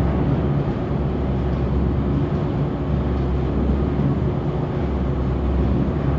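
Automatic corrugated-box erector machine running, a steady mechanical hum and noise.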